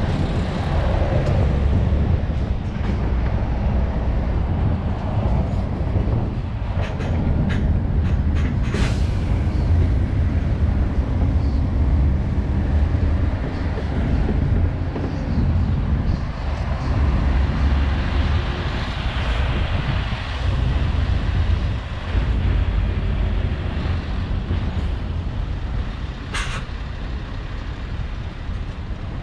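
Scania S650's V8 diesel lorry on the move, a steady low engine and road rumble picked up by a microphone outside on the trailer side, with a short sharp hiss near the end.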